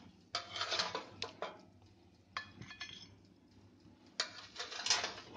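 Clattering and scraping of a metal oven tray and a glass plate as baked cheese toasts are lifted off the tray and set down. There is a cluster of scrapes and knocks near the start, a single sharp clink around the middle, and another cluster near the end.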